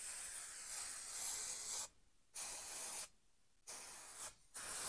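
Aerosol can of spray adhesive hissing as it sprays onto headliner fabric: a long spray, then shorter bursts with brief breaks between them.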